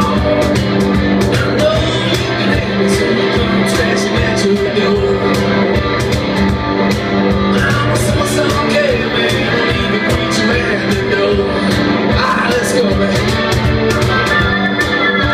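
Live rock band playing, with guitar over a steady drum beat and a sung vocal line.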